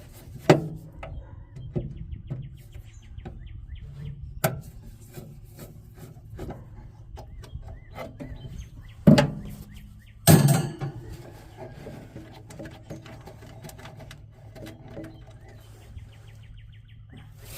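Phillips screws being turned out of the smoker's sheet-metal control panel: runs of fine rapid ticking from the screwdriver and threads, scattered small clicks, and a few sharp metal knocks, two of them louder about two-thirds of the way through, over a low steady hum.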